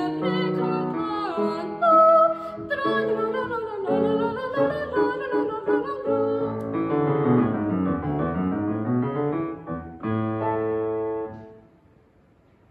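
A woman's classical voice singing with a Steinway grand piano, after which the piano alone plays a sweeping run down and back up and then closing chords, ending the song about eleven seconds in as the last chord dies away.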